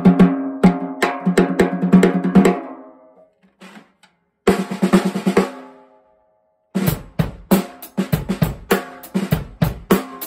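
An inexpensive, freshly assembled snare drum with its snares on, played with wooden sticks in two quick runs of strokes, each leaving a ringing tone that fades out. From about seven seconds in, a steady beat on the drum kit with bass drum and snare.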